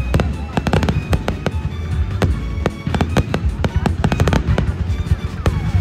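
Aerial fireworks bursting: a dense, rapid run of bangs and crackles, several a second, over a low rumble.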